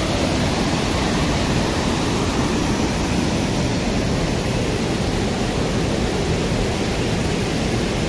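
Waterfall: whitewater pouring over a rock ledge into a river, a steady, even rush of water.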